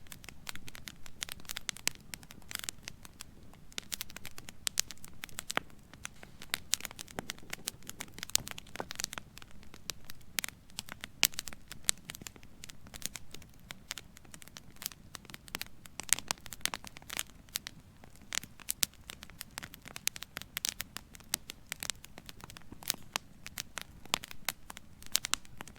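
Raindrops pattering irregularly, many sharp taps at random spacing over a faint hiss.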